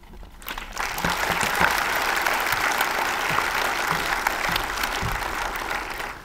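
Cinema audience applauding after a speech, the clapping swelling up about half a second in and cutting off suddenly near the end.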